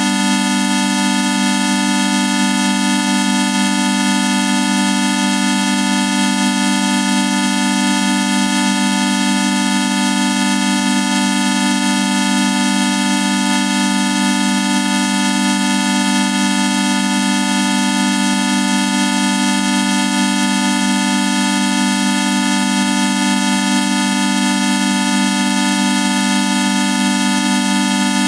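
Steady synthetic electronic drone, a loud low hum with many fixed higher tones and a hiss over it, unchanging throughout: a digitally generated sound effect made with vocoder and voice-changer software.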